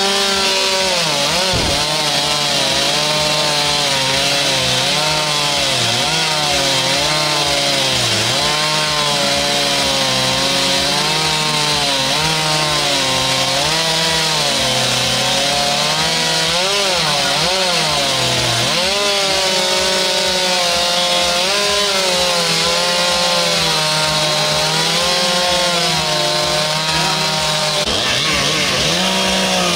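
Chainsaw cutting into wood, its engine pitch rising and falling constantly as the chain bites and eases off, with deeper dips about a second in and near the end.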